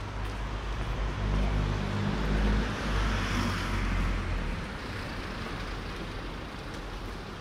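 A motor vehicle drives past on the street: a low engine hum and tyre hiss that swell to a peak about two to three seconds in, then fade away.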